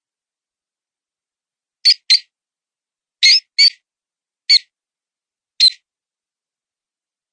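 Mouse distress squeaks used as a predator-calling lure: six short, high squeaks, two quick pairs and then two single ones, with dead silence between them.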